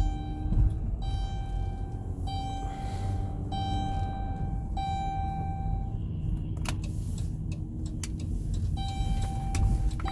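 Minivan running at low speed, heard from inside the cabin as a steady engine and road rumble. Over it a steady, even-pitched tone repeats in notes about a second long, stops about six seconds in and resumes near the end, with a few clicks in the gap.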